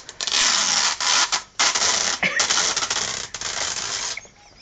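Sellotape being pulled off the roll with a loud rasping screech, in two long pulls with a brief break about a second and a half in.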